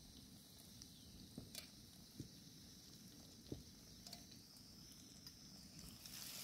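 Near silence with a faint low rumble and a few soft clicks. About six seconds in, hot oil starts to sizzle faintly as a batter-coated bread pakora goes into the frying pan.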